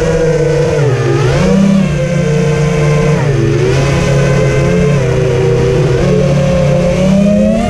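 FPV quadcopter's brushless motors and propellers whining, heard from the craft's own camera, the pitch dipping twice with the throttle and then rising steadily near the end.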